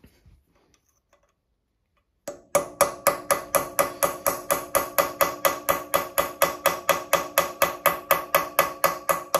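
Hammer blows on steel, a fast even run of about four strikes a second with a metallic ring, starting about two seconds in. They drive a tool against a sheared, seized exhaust stud that is very hard.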